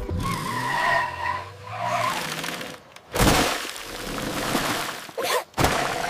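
Cartoon car sound effects: tyres squealing in a skid, then a sudden loud rushing crash about three seconds in and two short bursts near the end.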